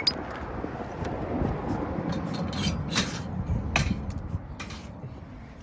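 A few light metallic clinks, about five spread over several seconds, over a low rumbling background.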